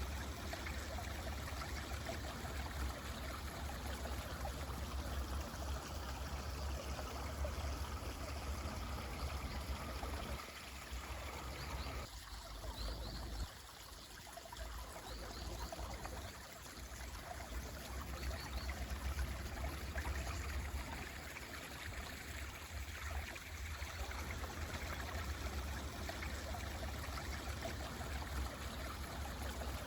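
Mountain stream running steadily over stones, with a few brief high bird chirps around the middle.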